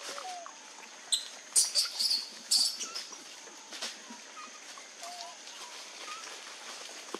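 Loud rustling crackles as food is handled at a plastic bucket, clustered from about a second in to near the three-second mark, with a few short squeaky chirps scattered through and a steady high insect drone.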